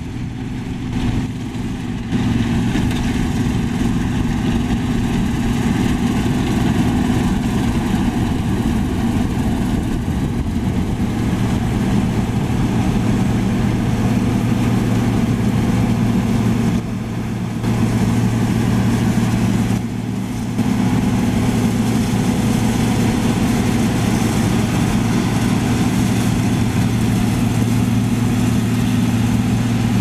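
John Deere 9860 STS combine running under load while harvesting soybeans: a steady diesel drone mixed with the rush of the threshing machinery and the chaff spreader. The level dips briefly a few times.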